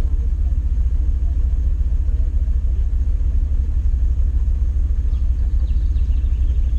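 Classic Fiat's engine idling while stationary, a steady low rumble heard inside the cabin.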